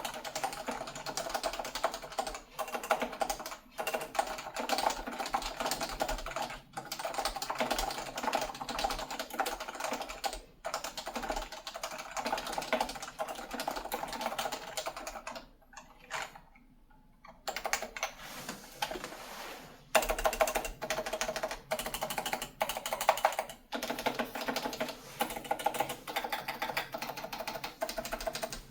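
Unsilenced Topre electrostatic capacitive keyboard (Leopold FC660c, stock, with aged rubber domes) being typed on at a steady fast pace. The keystrokes come in dense runs, with a couple of short pauses about halfway through and a few louder strikes after that.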